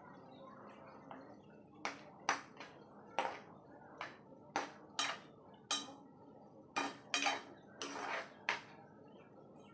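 Steel spoon stirring spinach and spices in a nonstick frying pan, knocking and scraping on the pan in about a dozen irregular clinks, starting about two seconds in and stopping about a second before the end.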